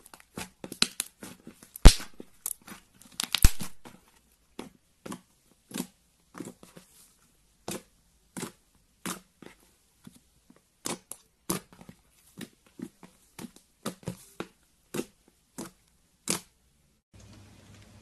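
Slime being played with, giving a series of sharp pops and crackles at irregular intervals. The loudest pop comes about two seconds in, and the pops stop shortly before the end.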